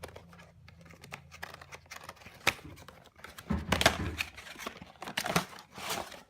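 Packaging being handled and torn open: rustling, crinkling and tearing with scattered sharp clicks, loudest in a few bursts past the middle.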